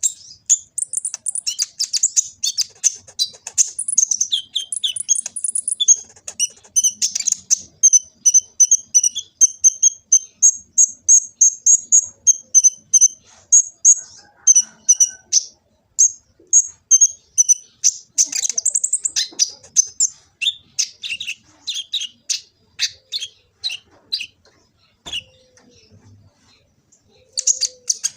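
Kolibri ninja sunbird singing a long, high-pitched song of rapid chirps and trills, briefly pausing near the end.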